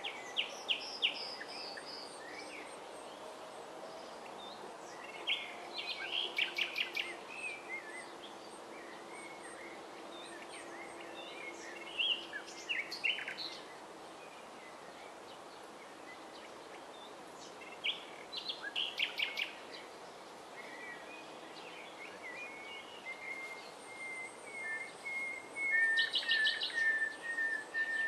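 Common nightingale singing: phrases of rapid repeated notes and trills every few seconds, with long drawn-out whistles in the last third.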